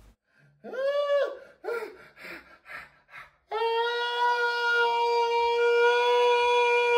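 A few short wailing cries that rise and fall in pitch, then one long steady horn-like note held from about three and a half seconds in.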